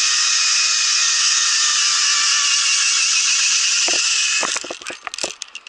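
Zip-line pulley trolley running fast along a steel cable, a loud steady whirring hiss. About four and a half seconds in the whir breaks off into a quick series of knocks and clatter of hardware as the rider reaches the end of the line.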